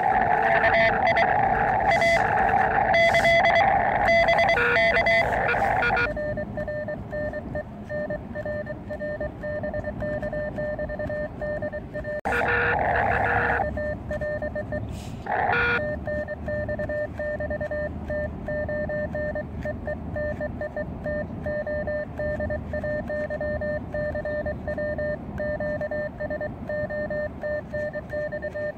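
Morse code (CW) tones from an Elecraft KX2 ham radio transceiver, a steady train of dots and dashes. For the first six seconds they sit under loud band noise. Two short bursts of noise come about twelve and fifteen seconds in.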